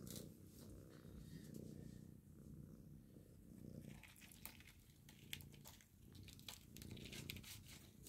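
Domestic cat purring close up, a low rumbling purr, with faint clicks and rustling from about four seconds in.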